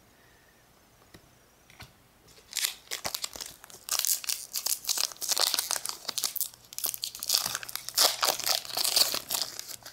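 Foil wrapper of a Pokémon Fossil booster pack crinkling and tearing as it is opened by hand. It begins about two and a half seconds in as a dense run of crackles.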